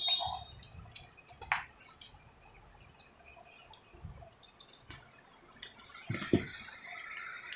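A cat eating dry kibble from a stainless steel bowl: irregular crunching and light clicks of kibble against the metal, with a louder bump a little after six seconds in.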